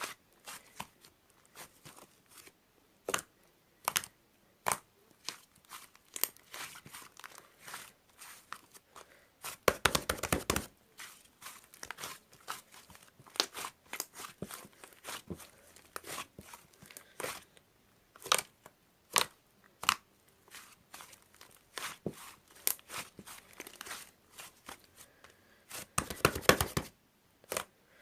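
Close-up handling noise: scattered sharp clicks and crinkles, with two short tearing bursts, one about ten seconds in and one near the end.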